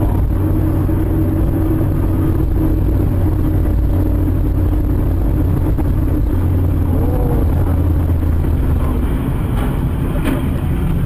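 Steady in-car engine hum and tyre noise from a car driving on a slushy, wet highway, with a short faint knock near the end.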